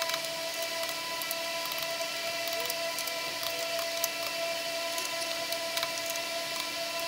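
A steady mechanical hum of several fixed tones under light clicks and taps of a torque wrench working the intake manifold bolts, with one sharper click about four seconds in.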